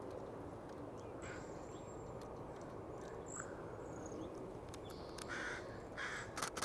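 Cedar waxwings giving a thin, very high whistle about a second in, then a few short, harsh bird calls near the end over a steady low background.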